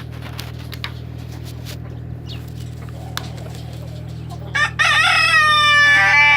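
A rooster crows once, a long call starting about four and a half seconds in and ending near the end, over a steady low hum.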